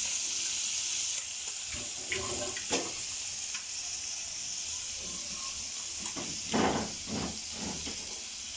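Chopped onions sizzling in hot oil in a kadai: a steady hiss, with a brief louder sound about two-thirds of the way through.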